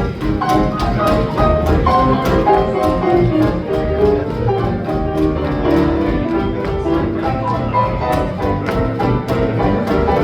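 Live hot swing jazz band in the 1920s–30s style playing an uptempo tune with a steady beat.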